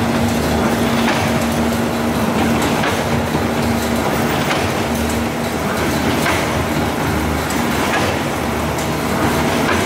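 Hexagonal wire-mesh weaving machine running: a steady mechanical rumble and hum that swells and eases in a cycle about every one and a half seconds, with light metallic clicks now and then.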